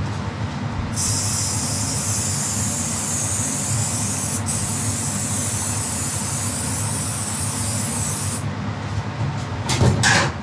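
Aerosol spray can spraying onto a steel frame tube: a steady high hiss lasting about seven seconds, broken once briefly midway. A short clatter near the end.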